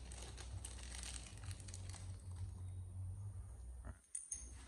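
Plastic parts bag crinkling as a small fitting is unwrapped and handled, thinning out after about two seconds, with a few small clicks near the end. A steady low hum runs underneath.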